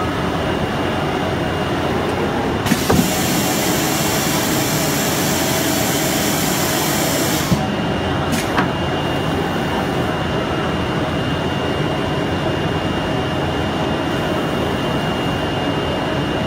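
CNC flatbed cutting table with conveyor running as its cutting head works across printed sticker film: a steady machine whir with a faint high whine. A hiss cuts in about three seconds in and stops abruptly about five seconds later, with a few sharp clicks.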